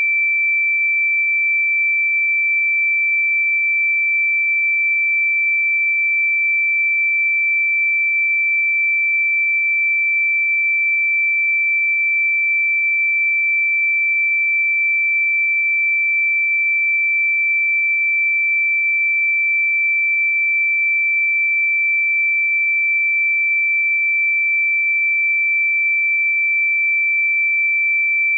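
A single pure, steady electronic sine tone, high-pitched and unchanging in pitch and loudness, played as a sound-healing frequency tone.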